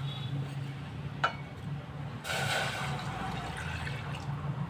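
Water being poured from a glass into a pot, with a short pouring splash a little over two seconds in and a sharp click about a second in. A low steady hum runs underneath.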